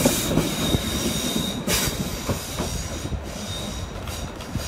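Class 444 electric multiple unit moving along the curved platform, its wheels squealing with a high steady tone and its wheels knocking irregularly over the rail joints. The squeal dies away about halfway through and comes back faintly near the end, while the whole sound slowly grows quieter.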